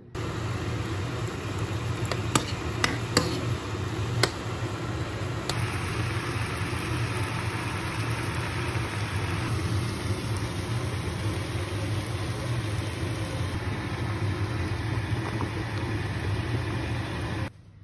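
Meat frying in oil in a pan: steady sizzling over a low hum, with a few sharp clicks about two to four seconds in.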